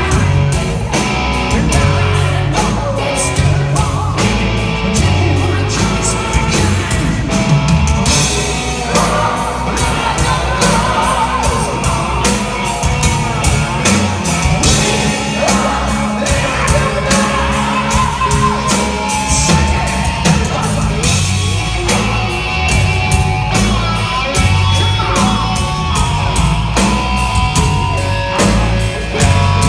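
A live hard rock band playing loudly in a large hall, heard from the audience: a male singer shouting and singing over electric guitar, bass and a steady drum beat.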